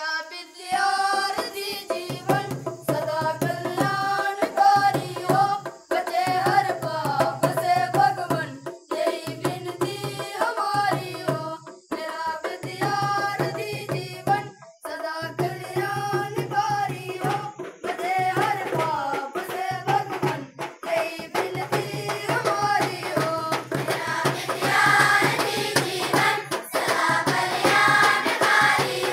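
A group of schoolchildren singing together in phrases with brief pauses between them, accompanied by a hand drum keeping the beat.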